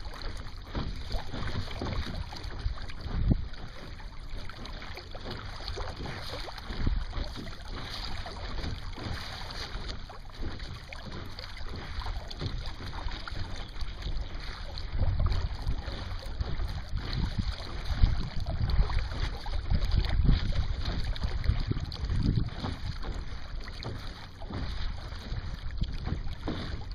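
Small Sunfish sailboat under sail: water rushing and splashing along the hull, with wind gusting over the microphone in low rumbles that rise and fall.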